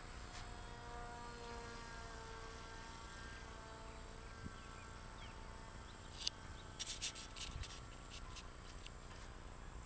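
Faint buzzing hum of a small electric pusher propeller on a distant RC glider, its pitch drifting slowly as it fades out. A cluster of sharp clicks comes about six to eight seconds in.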